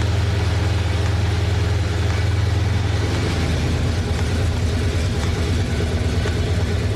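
Pontiac GTO's V8 engine running steadily with a deep, even tone.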